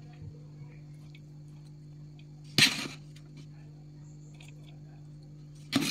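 Par-cooked rice being dropped in clumps into a steel pot: one short soft swish about two and a half seconds in and another near the end, over a steady low hum.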